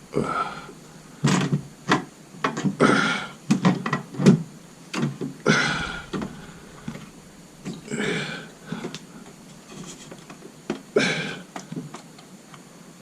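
Hard plastic clicks and knocks from a DDR4 RAM stick being handled and pressed into a desktop motherboard's memory slot, which does not snap home. Between them, a person breathes in slow, heavy swells about every three seconds.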